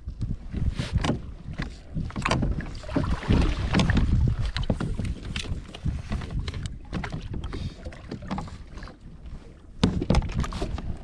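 Wind buffeting the microphone with irregular knocks and bumps of a paddle and gear against plastic kayak hulls as the two kayaks jostle on the sea.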